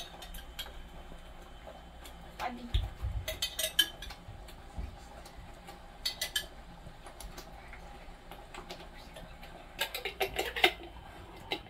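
Metal utensils clinking against kitchenware in short runs of quick clicks: about three seconds in, again around six seconds, and once more near the end.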